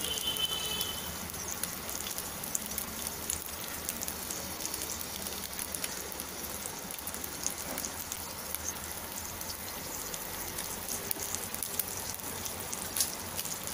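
Halved boiled eggs frying in hot oil in a pan: a steady sizzle with fine crackling spits.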